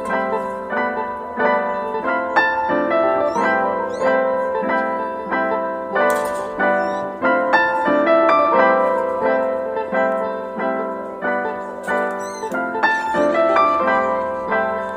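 Background piano music with a steady run of notes, and a few brief high chirps over it.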